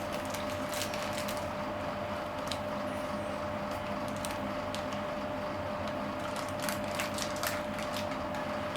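Scattered clicks and knocks from ceiling fan parts and their packaging being handled: a few near the start and a cluster in the second half. Under them runs a steady hum with a constant tone.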